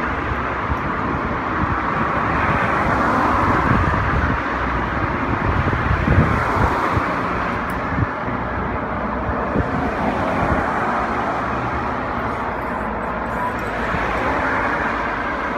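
Steady road traffic noise with a low rumble.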